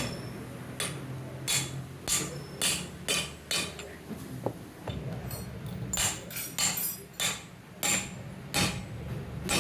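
Hammer striking metal in repeated sharp blows during motorcycle crankshaft bearing work. About six blows come in the first four seconds and more close together after a pause of about two seconds.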